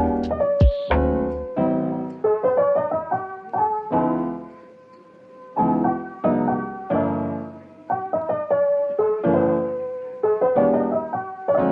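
Background music: a mellow piano melody over soft chords, easing off briefly about five seconds in.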